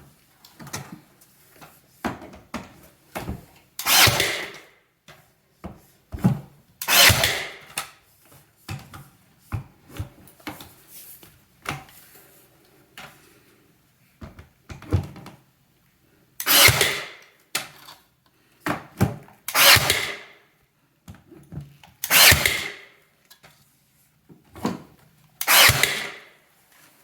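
Nail gun driving nails into baseboard trim: about six loud shots, each a short burst well under a second, spaced a few seconds apart, with light knocks and handling clicks in between.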